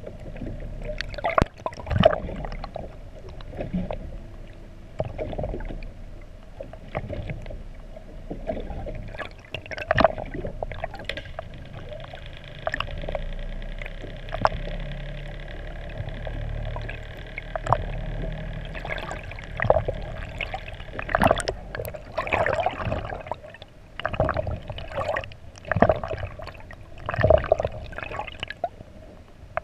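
Underwater sound heard through a camera housing: a steady hum with a low rumble under it, and irregular knocks, gurgles and splashy bursts of water close to the housing, thickest in the last third.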